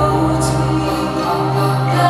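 Music of slow, long-held notes over a sustained bass, with choir-like voices.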